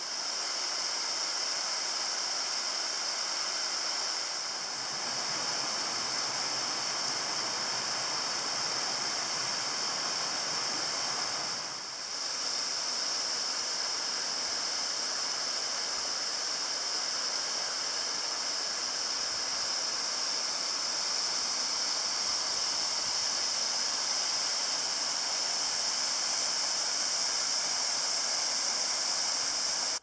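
Steady rushing of water from a waterfall partly frozen over with ice, dipping briefly twice and cutting off abruptly at the end.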